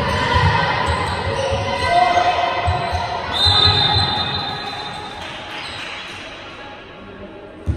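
Basketball dribbled on a hardwood sports-hall floor, with players' shouts echoing around the hall. About three seconds in, a referee's whistle sounds as one steady high tone for well over a second, and the hall then goes quieter.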